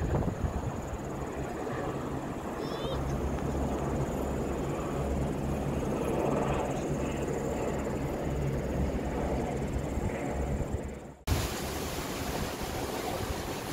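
A low, steady drone with an outdoor rumble. After a sudden cut about two seconds before the end, it gives way to the even rushing hiss of a waterfall falling close by.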